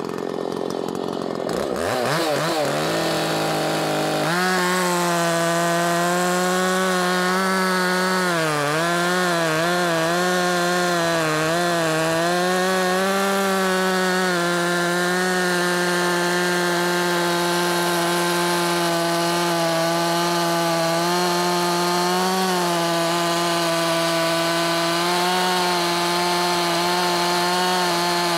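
Makita 5600 chainsaw, a Dolmar-built 56 cc two-stroke, revving up about two seconds in and then running at full throttle in a cut through a large log with a freshly sharpened chain. The pitch wavers and dips between about 8 and 13 seconds in, and otherwise holds steady at around 10,300 rpm under load.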